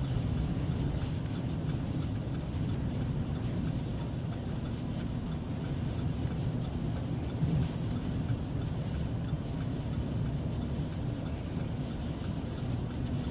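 Steady engine and road noise inside a truck's cab while driving.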